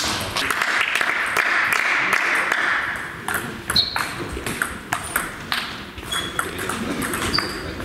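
Table tennis rally: the ball makes sharp ticks off the bats and the table, in quick irregular series, with more ticks from play at a neighbouring table. A soft hiss sits under the first three seconds.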